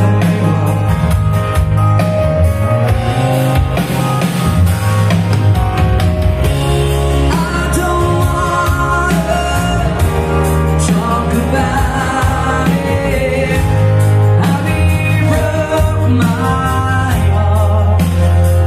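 A pop-rock song with a singing voice and a heavy bass line, played back through Wharfedale Diamond 9.6 loudspeakers.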